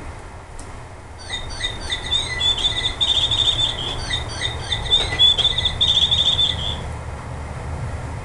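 A small songbird singing two phrases, each a run of quick down-slurred chirps ending in a rapid high trill. The song starts about a second in and stops near the end, over a low steady rumble.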